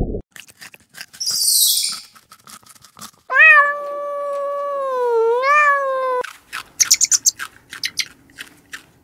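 A cat meowing: one long, drawn-out meow of about three seconds that dips and then rises in pitch near its end. Scattered clicks and a short hiss come before it, and more clicks follow.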